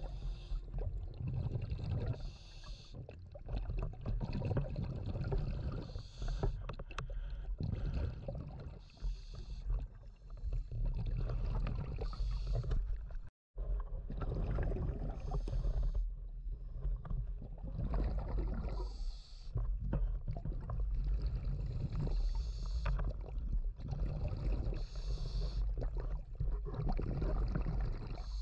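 Underwater scuba breathing: a diver's regulator drawing breaths and venting exhaled bubbles, about one breath every three seconds, over a low rumble of water and bubbles.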